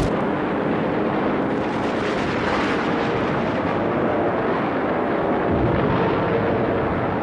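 A warplane's engine, a steady, even rushing drone without distinct shots.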